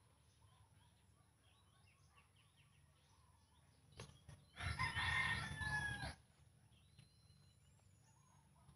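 A rooster crows once, about five seconds in, for roughly a second and a half, with the pitch falling at the end. Faint chirps of small birds come before and after it.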